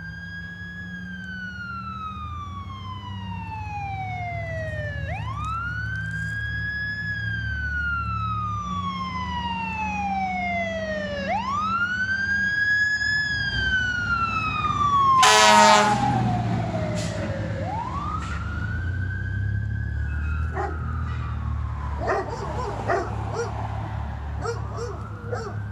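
Emergency vehicle siren on a slow wail, rising and falling about every six seconds, over the low drone of a vehicle engine. A short horn blast about halfway through is the loudest sound.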